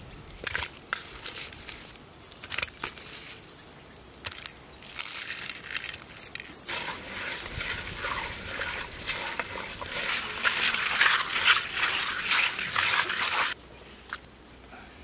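Hands working raw fish pieces in a clay pot: wet squelching, rubbing and sloshing with small knocks, busier and louder in the second half and cutting off sharply near the end.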